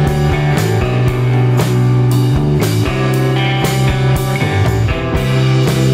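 Background rock music with electric guitar and a steady drum beat.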